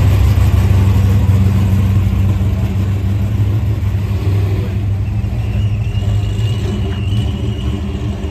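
Engines of vintage American cars running at low speed as they pull away one after the other, a deep steady exhaust rumble that slowly fades.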